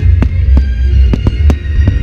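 Fireworks display going off: a deep, pulsing rumble of booms with irregular sharp cracks several times a second. Music with sustained tones plays underneath.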